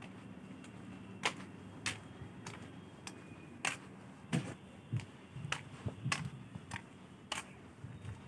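Footsteps on a concrete platform: sharp, regular steps about every 0.6 s, a few with a dull thud, over a low steady background.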